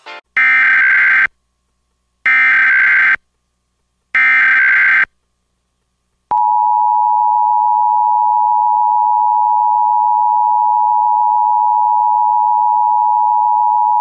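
Emergency Alert System signal for a NOAA Weather Radio test: three short bursts of SAME digital header data tones, each just under a second, then after a brief gap a long, steady warning alarm tone lasting about eight seconds that cuts off sharply.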